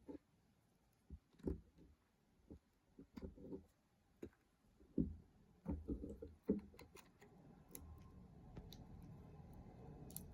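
Small 3D-printed plastic model parts being handled and fitted together: irregular light clicks and knocks, densest in the first two-thirds. A faint steady low hum rises about seven seconds in.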